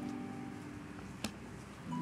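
Background music of soft, held chord notes, with one sharp click a little past a second in.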